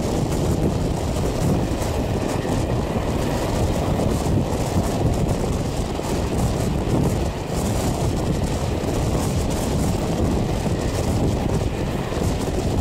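Wind buffeting a microphone held out of the window of a moving passenger train, over the train's steady running noise on the track.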